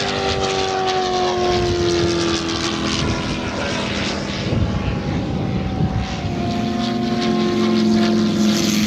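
Large-scale radio-controlled model warbird flying at high power: the drone of its engine and propeller falls in pitch as it climbs away, and the note falls again near the end as it passes once more.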